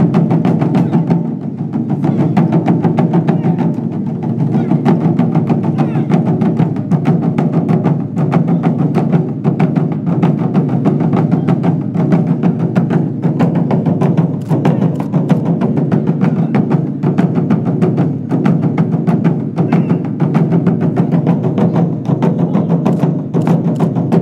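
Japanese taiko ensemble beating nagado-daiko barrel drums with wooden bachi sticks in a fast, dense rhythm of strikes.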